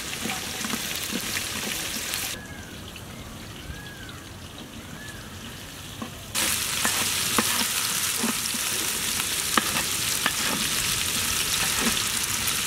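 Diced vegetables sizzling as they fry in oil in a large metal pot, with clicks and scrapes from a wooden spatula stirring them through the second half. For a few seconds in the middle the sizzle drops much quieter, then comes back louder.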